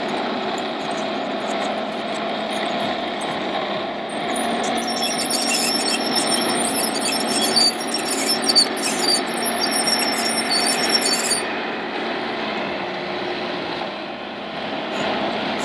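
A radio-controlled model construction machine letting out a high-pitched, flickering squeal for about seven seconds, over a steady mechanical din.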